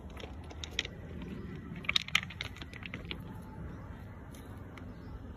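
Footsteps crunching on railway ballast stones, a scatter of sharp clicks and knocks, loudest about two seconds in.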